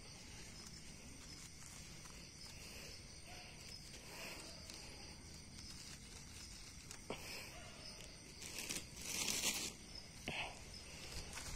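Dry leaf litter rustling and crackling faintly as mushrooms are picked out of it by hand, with a louder rustle about nine seconds in. A steady, faint high insect chorus runs underneath.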